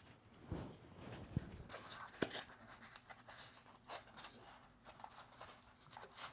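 Faint rustling and light clicks from hands working on a newly unboxed 3D printer and its foam packing, with two sharp ticks about a second and a half and two seconds in.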